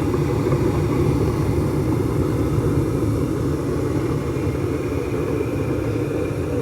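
Gas furnace running after its inducer motor replacement: a steady mechanical hum and rush of air, unchanged throughout.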